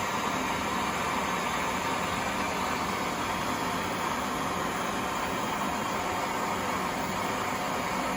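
Gas torch flame burning with a steady rushing hiss, heating a copper washer red hot so it can be reused.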